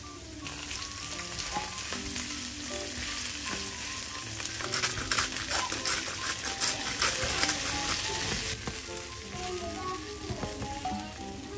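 Edamame pods frying in olive oil with garlic in a nonstick frying pan, sizzling, with clicks and rattles as they are stirred with a spatula. The sizzle is loudest through the middle and eases off about eight and a half seconds in. Soft background music underneath.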